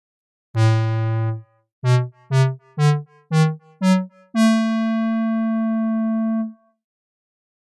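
Synthesizer music cue: a low note held for about a second, then five short notes climbing step by step at about two a second, then a higher note held for about two seconds at an even level.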